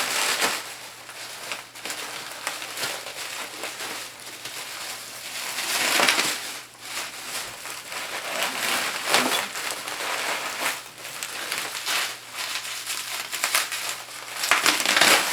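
Plastic packing wrap crinkling and rustling as it is pulled off and handled, in irregular bursts with louder surges.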